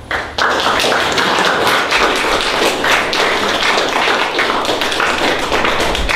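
Audience applauding: many hands clapping in a dense, loud patter that starts suddenly just after the start and keeps going.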